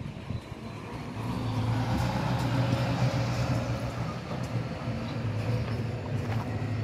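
Engine of a heavy demolition machine running steadily, with a low, even drone that grows louder about a second in.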